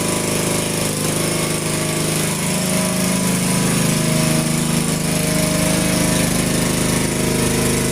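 Powered machinery working the concrete slab, running steadily with a fast rattling hammer or cut, loud enough to drown out talk.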